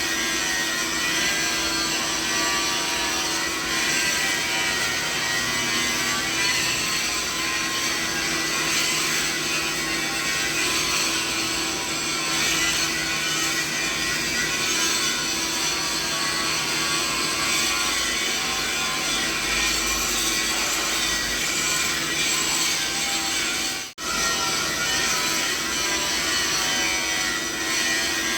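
Steady mixed machinery noise, a tinnitus masking sound: a continuous mechanical hum with a steady low tone under a dense hiss spread from low to high pitches. It cuts out for an instant about 24 seconds in, then resumes unchanged.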